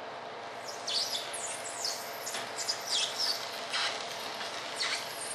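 A quick, irregular run of short high chirps, each sliding downward in pitch, starting about a second in, over a steady background hum.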